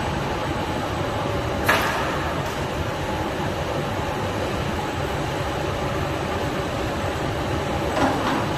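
Steady mechanical hum of a powered roller conveyor line carrying a loaded pallet, with a sharp clank about two seconds in and a softer knock near the end.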